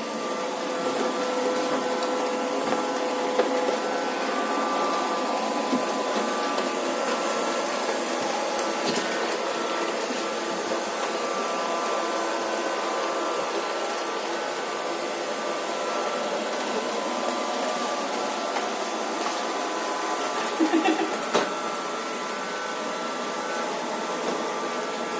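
Robot vacuum cleaner running steadily, a whirring motor with a whine of several steady tones, broken by a few isolated knocks and a quick run of knocks about twenty seconds in.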